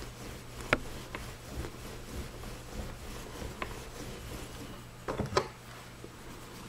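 Small sharp clicks and taps from handling a watch screw and a screw-head polishing tool on its laps, over a low steady hum. There is one sharp click just under a second in, a few fainter ones after it, and a quick cluster of clicks about five seconds in.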